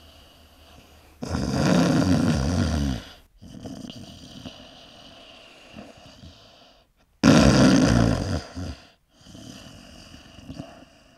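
A sleeping man snoring very loudly: two loud snores about six seconds apart, each lasting one to two seconds, with quieter breathing between them.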